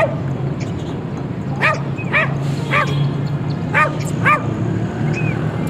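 A dog barking: about six short, high-pitched barks, some coming in quick pairs, over a low steady hum.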